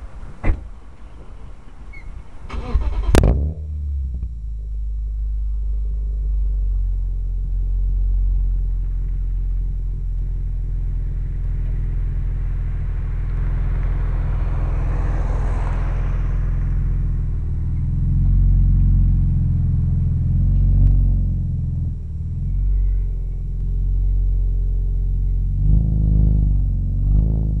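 BMW E46 M3 straight-six through a Megan Racing aftermarket exhaust, catching after a short burst about three seconds in and settling into a steady, deep idle. Later the revs rise and fall as the car pulls away.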